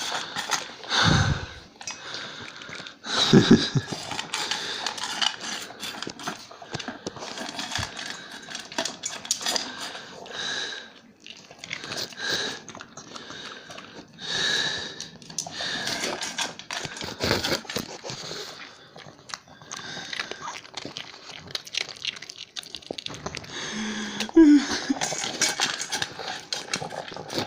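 A pug eating, chewing and crunching its food in a run of irregular, uneven noises, with a couple of louder knocks in the first few seconds.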